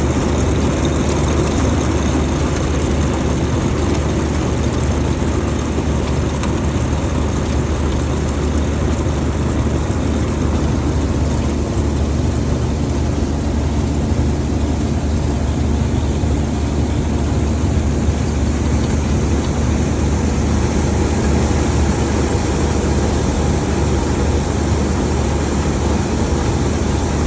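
Combine harvester running steadily while harvesting: a constant low engine drone mixed with the noise of the machinery, unchanging throughout.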